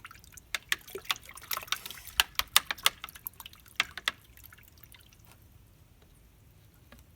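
Hummingbird nectar (sugar water) splashing and dripping in a plastic tub: a quick run of light clicks and drips for about four seconds, then it goes quiet.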